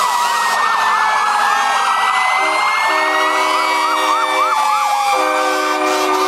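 Several fire engine sirens sounding at once: one yelps in quick rising sweeps, several a second, while others wail slowly downward. From about two and a half seconds in, long low horn blasts come and go over them.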